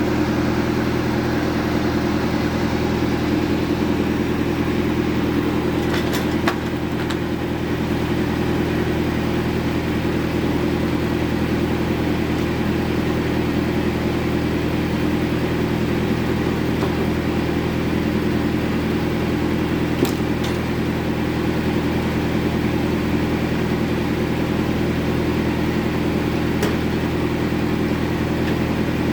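A sawmill bandsaw running steadily while sawing jengkol hardwood into boards, with a few brief sharp clicks along the way.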